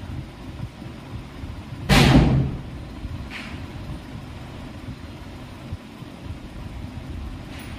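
A single loud thump about two seconds in, over a steady low rumble, with a couple of faint clicks afterwards.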